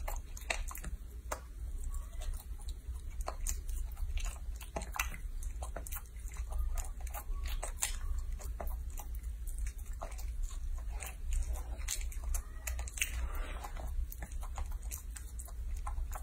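A young macaque chewing and biting into soft sweet potato: wet, irregular smacks and clicks of its mouth, over a steady low hum.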